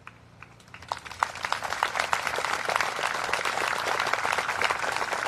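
Crowd applauding outdoors: a few scattered claps about half a second in, building into full, steady applause by about two seconds.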